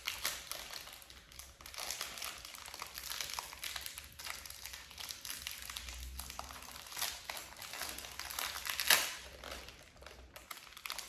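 Packaging crinkling and rustling as it is handled and opened, with a louder crackle about nine seconds in.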